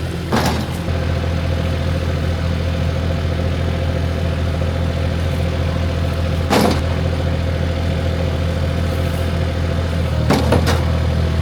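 An engine running steadily at idle, a low even hum, with a few short knocks or clatters: one near the start, one past the middle and a couple near the end.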